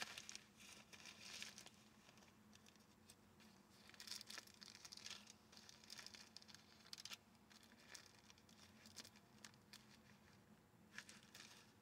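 Near silence with faint rustling and scattered light ticks: the pages of a Bible being leafed through to look up a verse.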